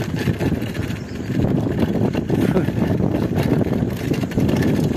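Mountain bike rolling over a rough dirt and gravel track: a dense, irregular run of knocks and rattles from the tyres hitting stones and ruts and the bike shaking over the bumps, a little louder from about a second and a half in.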